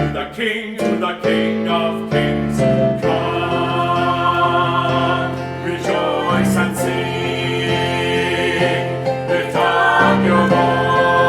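Church choir singing long held chords, with piano accompaniment; the chords change about halfway through and again near the end.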